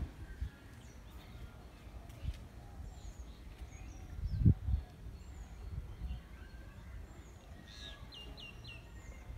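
Small birds chirping in short, sweeping notes, with a quick run of three notes near the end. Beneath them is a low rumble on the microphone that bumps up sharply once about halfway through.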